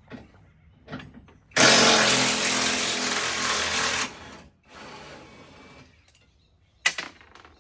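A power tool runs in one loud burst of about two and a half seconds, dies down to a softer run for about a second, then stops. Sharp knocks of metal on metal come just before and near the end.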